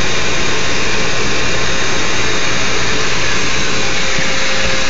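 Bee vacuum running steadily, sucking honey bees off the comb up a corrugated hose: a loud, even rush of air with a faint constant hum.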